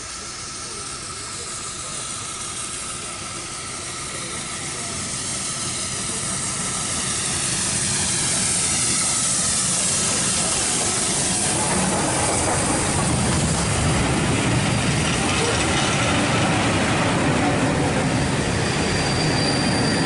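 BR Thompson B1 4-6-0 steam locomotive No. 61306 "Mayflower" with its two-cylinder engine approaches and passes close by, with a steam hiss that grows louder as it nears. After it passes, about ten seconds in, its coaches rumble and clatter by on the rails.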